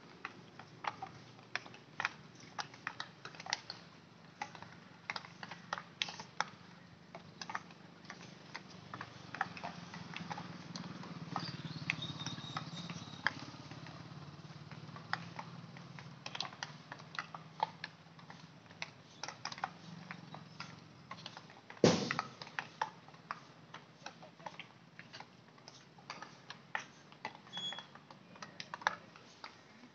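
Field hockey sticks striking balls on an artificial turf: irregular sharp clacks, several a second, from many players training at a distance, with one much louder knock about 22 seconds in.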